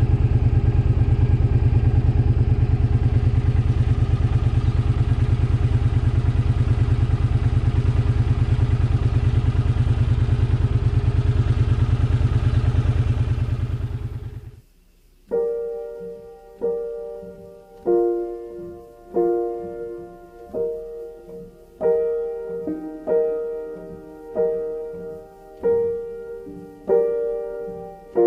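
Suzuki Boulevard C50 (VL800) 805 cc V-twin idling steadily, fading out about fourteen seconds in. A gentle piano song follows, its chords struck roughly every second and a half.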